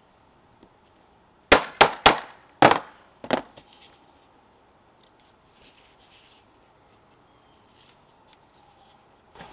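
Ball-peen hammer striking a steel hole punch five times to drive it through nylon webbing into a wooden board: three quick blows, then two more a little apart, each a sharp metallic clang. After that, only faint small clicks of handling.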